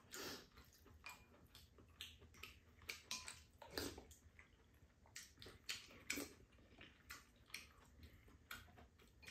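Quiet eating at a table: scattered soft clicks of spoons and chopsticks against ceramic bowls, with some chewing.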